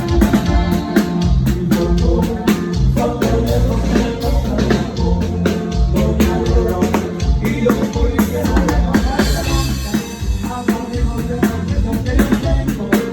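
A live band playing at a sound check, drum kit keeping a steady beat over a strong bass line.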